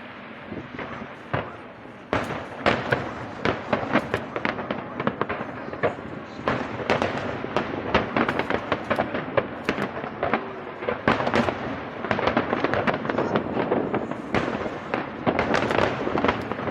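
Aerial fireworks bursting in quick succession: many sharp bangs and crackles, thickening from about two seconds in, over a continuous rumble.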